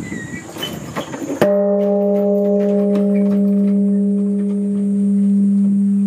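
Japanese bronze temple bell (bonshō) struck once with its swinging wooden beam striker, about a second and a half in, after a rustling noise. The deep hum rings on steadily, slowly swelling and fading.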